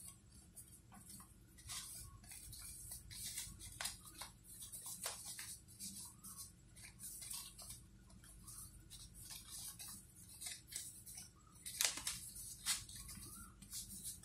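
Folded paper crinkling and rustling in short, irregular crackles as the eight paper modules of an origami shuriken are pushed and slid inward. The loudest crackle comes about twelve seconds in.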